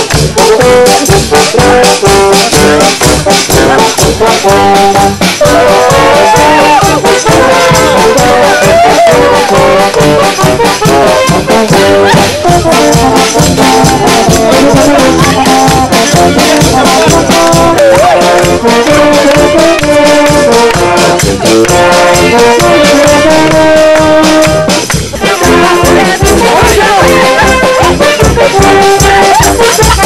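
Brass band with drums playing lively dance music: brass melody lines over a steady beat.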